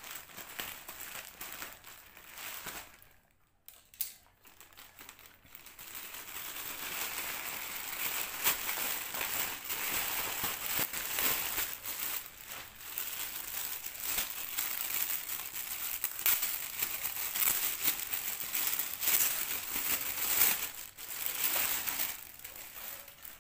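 Scissors snipping through a plastic courier pouch, then plastic packaging crinkling and rustling continuously as it is pulled open and handled.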